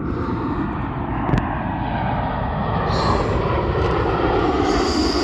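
Jet airliner's engines heard close by as it passes on or near the runway: a loud, steady rushing noise that swells up just before and holds through.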